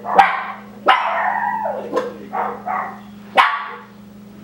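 A dog barking repeatedly, about six sharp barks in quick succession over the first three and a half seconds, with a steady low hum underneath.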